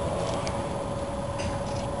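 A steady mechanical hum over a constant low rumble, with a few faint ticks.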